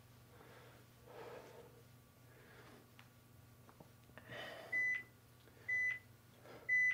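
Workout-video interval timer sounding three short, high beeps about a second apart in the second half, counting down the last seconds of a 30-second stretch interval. Before them, soft breaths.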